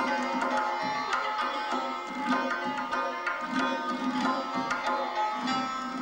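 Santur and tonbak duet in Persian classical music: rapid strokes of the goblet drum under the ringing, hammered strings of the santur.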